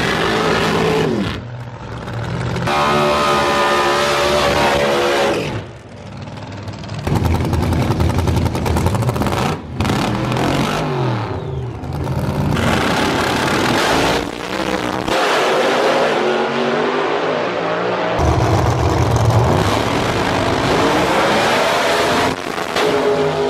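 Drag racing cars' engines revving loud through burnouts and launches down the strip, rising and falling in pitch. The sound changes abruptly several times as short clips cut one to the next.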